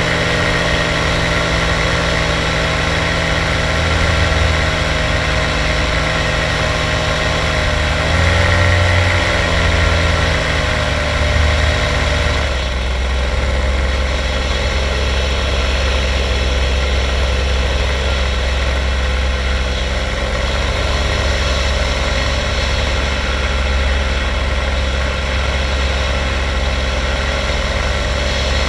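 Small aircraft engine and propeller running steadily in flight, heard close up with wind rush. The engine note wavers up and back around eight seconds in, then drops to a lower, steady note a little after twelve seconds.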